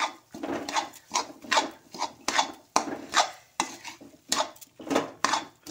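Flat metal spatula scraping around a kadhai as it stirs a thick mawa, dry-fruit and coconut filling, in short scrapes about two a second.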